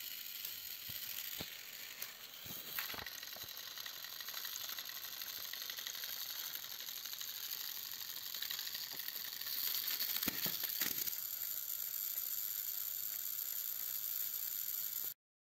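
Small electric motors of battery-powered toy trains whirring steadily as two toy engines push against each other on plastic track. The whir grows slightly louder partway through, with a few sharp plastic clicks and knocks along the way, and stops abruptly near the end.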